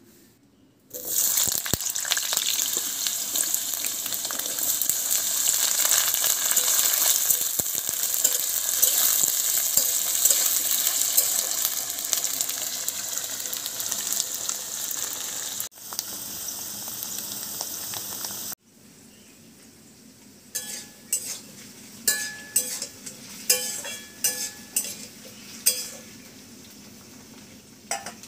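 Cut potato pieces drop into hot mustard oil in a metal kadai about a second in and sizzle loudly as they fry. Later the frying is quieter, broken by several sharp metal clinks of stirring in the pan.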